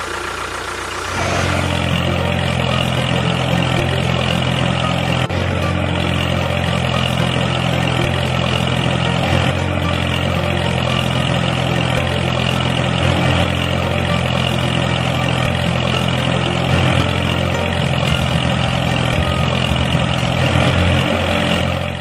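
Remote-control toy excavator running: a steady engine-like hum that starts about a second in and holds evenly.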